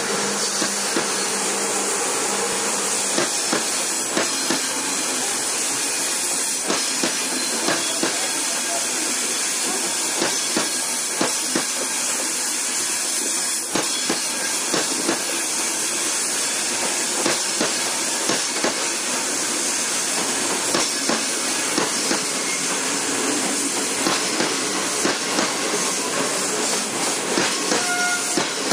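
Passenger train running along the track: a steady rushing hiss of wheels and air, with frequent irregular clacks of the wheels over the rails.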